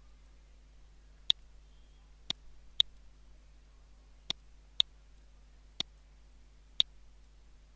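Computer mouse button clicking: seven sharp single clicks at uneven spacing, some half a second apart and some a second or more, over a faint steady low hum.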